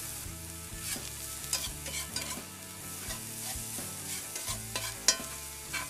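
Chopped onions, Anaheim peppers and garlic sizzling in hot oil in a pan while being stirred, with the utensil clicking and scraping against the pan now and then.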